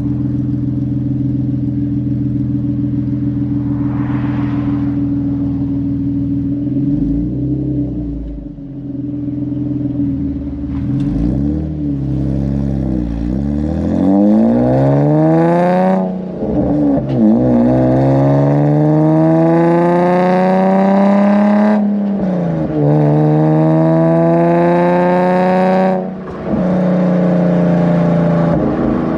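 Nissan 370Z's 3.7-litre V6 breathing through PPE aftermarket headers while driving. It runs steadily at first, then revs rise and fall several times, then it pulls up through the revs in long climbs, each cut by a gear change.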